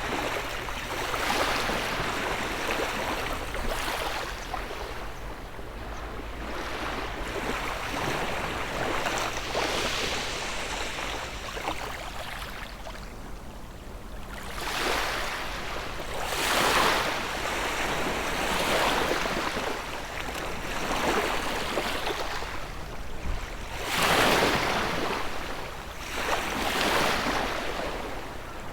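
Sea waves washing onto the shore, each swell rising and falling away every two to three seconds.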